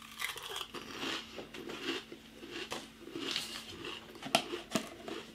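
Pringles crisps being crunched and chewed in the mouth: irregular crackly crunching, with a couple of sharper crunches near the end.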